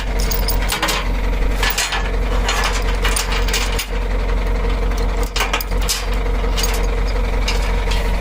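Hand tractor's engine running steadily, with repeated knocks and rattles over its hum.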